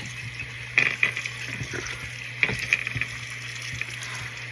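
Bathroom sink tap running steadily into the basin, with a few brief splashes about a second in and again midway.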